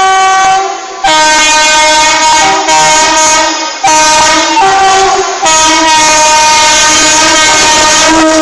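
WAP-4 electric locomotive's air horn sounding loudly in a string of long blasts with brief breaks, the pitch switching between higher and lower tones several times.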